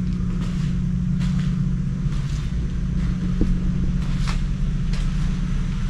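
A steady low mechanical hum, with faint irregular taps about once a second.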